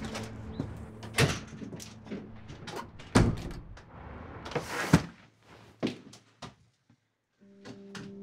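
A front door being worked open and shut: a string of handle and latch clicks and knocks, the loudest about three and five seconds in. Steady music comes in near the end.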